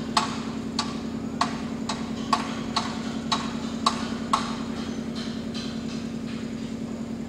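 Sharp knocks, about two a second, over a steady engine hum; the knocks fade away after about five seconds.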